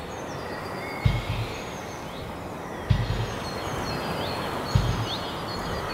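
Outdoor ambience: a steady hiss with birds chirping. Three low thuds about two seconds apart cut through it.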